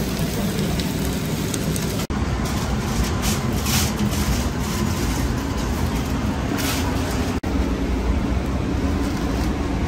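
Steady low rumble of shop and street background noise, which breaks off for an instant twice, with a papery rustle around three to four seconds in as the wrap is rolled in paper.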